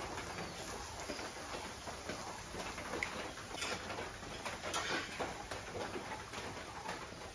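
Fritters sizzling in mustard oil on a flat pan over a wood fire: a steady hiss with scattered crackles, and a few sharper clicks of a metal spatula against the pan.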